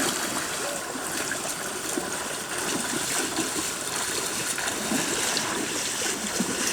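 Steady trickle of running water, like a small stream flowing.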